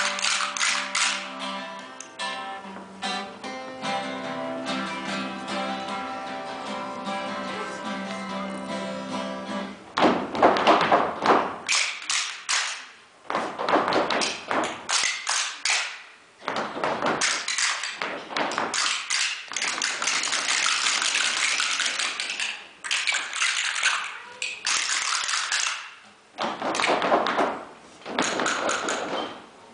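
Acoustic guitar strummed with a group of children singing. About ten seconds in, this gives way to a rapid clatter of wooden rhythm sticks tapped together, coming in bursts of a second or two with short pauses between them.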